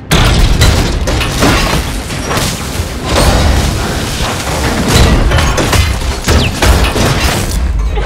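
Layered action-movie sound effects: a sudden heavy crash with electrical sparking as a body slams into machinery, then further booms and crashes that swell about three and five seconds in.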